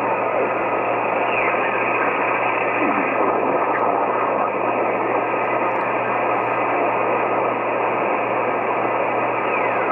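Yaesu FT-991A transceiver receiving on the 10-meter amateur band, played through a home-built external speaker cabinet with its own amplifier: steady band-noise hiss, with a few faint whistles sliding down in pitch as the tuning knob sweeps across signals.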